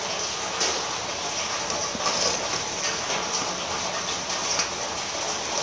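Heavy rain falling steadily, a constant hiss with a few light taps scattered through it.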